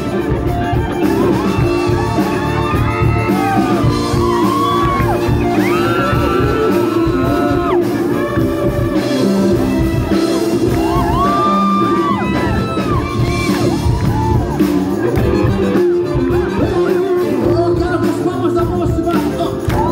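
Live band music played loud through a PA in a large hall: electric guitar and drums, with a singer's voice and shouts.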